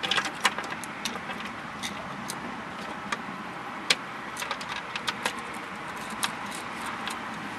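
Scattered light clicks and metallic taps from a hand screwdriver driving a screw into a plastic steering column cover, over a steady background hiss.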